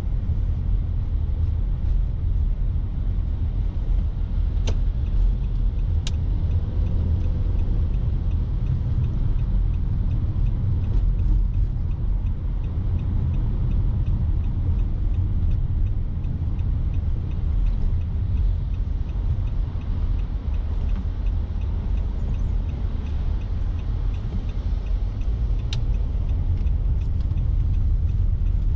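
Car driving along a road: a steady low rumble of tyres and engine, heard from inside the car, with a few brief clicks.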